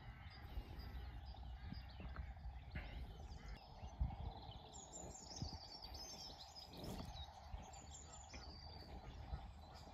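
Quiet outdoor ambience: a low steady rumble with faint bird chirps, and a couple of brief soft knocks.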